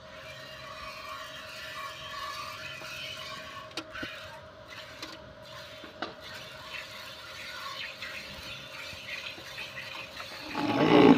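Hand milking a cow into a metal pail: streams of milk squirting from the teats into the pail make a steady hiss. Near the end a louder, lower sound swells briefly.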